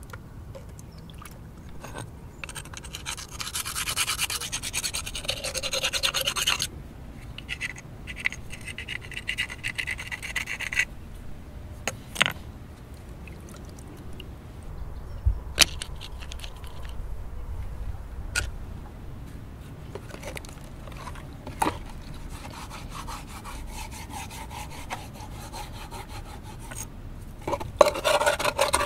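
Rubbing and scraping in two bursts in the first half, then a few sharp knocks. A steady rasping scrape starts near the end, as an object is worked in a clay bowl.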